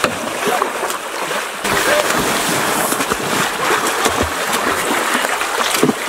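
Heavy splashing and churning of shallow river water as people lunge and wade through it, with a stick striking the surface. The splashing grows louder about a second and a half in.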